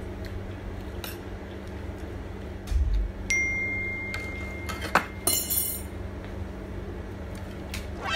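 Metal eating utensils clinking against a plate, and a dropped utensil clattering, with short ringing clinks about five seconds in and again near the end. A dull thump comes just before three seconds.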